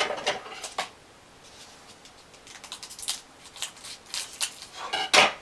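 Football trading cards and their plastic packaging being handled: scattered crinkling rustles and clicks, quieter for a second or two, with the loudest rustle about five seconds in.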